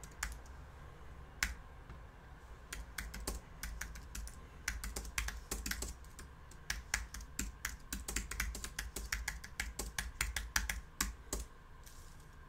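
Typing on a computer keyboard: irregular key clicks, a few scattered at first, then a quick run of keystrokes through most of the rest.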